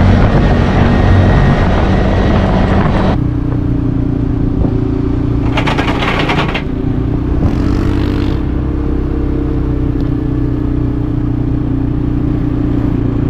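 Quad bike engine running at a steady pitch while riding, rising a little about halfway through. A rougher, noisier sound covers the first three seconds and cuts off abruptly.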